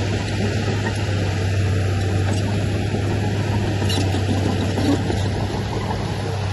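Diesel engine of heavy earthmoving machinery running steadily, a constant low hum under a rough mechanical rumble.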